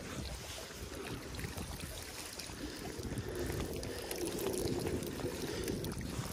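River water splashing and dripping as a fishing magnet and its snagged catch are hauled up out of the water, growing louder about halfway through.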